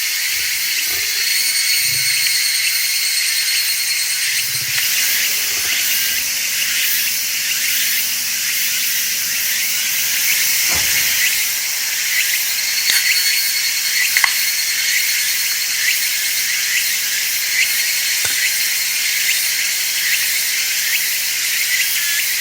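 A dense, steady chorus of late-summer insects, crickets and the like, trilling in high-pitched layers, with a few faint clicks.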